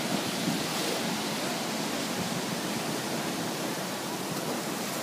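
High surf and choppy harbor water washing and breaking: a steady rushing noise.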